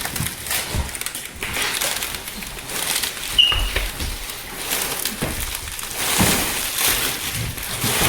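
Cardboard box and packaging being handled and pulled open: irregular rustling, scraping and light knocks, with one brief high squeak about three and a half seconds in.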